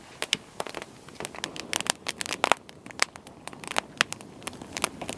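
Wood campfire crackling and popping, with many sharp, irregular pops.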